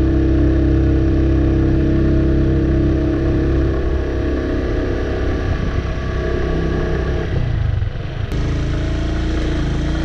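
Motorcycle engine running while riding along, its note steady at first. About eight seconds in it dips briefly, then picks up again.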